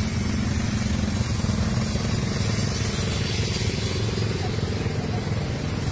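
A small ATV engine running steadily, most likely idling with the quad stationary.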